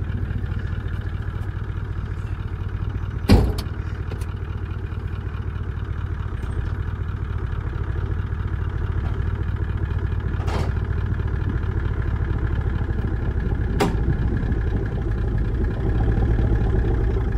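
Vehicle engine running steadily at low speed while manoeuvring, with a sharp knock about three seconds in and two lighter clicks later.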